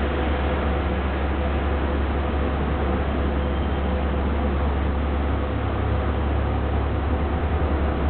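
Sunlong BRT bus idling at the platform: a steady low engine rumble with an even hiss over it and a faint steady hum.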